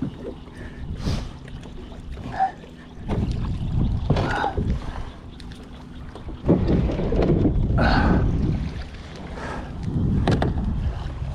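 Wind buffeting the microphone and water lapping against a small fishing boat, swelling and easing in gusts, loudest from about six and a half seconds in.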